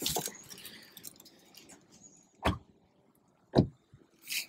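Movement and handling noise of someone climbing out of a car: faint rustling, then two dull thumps about a second apart, and a brief hiss near the end.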